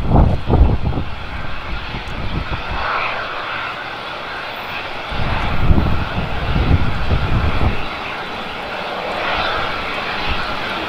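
Airbus A380's jet engines running at low power during pushback, a steady whine and rush. Low rumbling gusts of wind on the microphone come at the start and again around six seconds in.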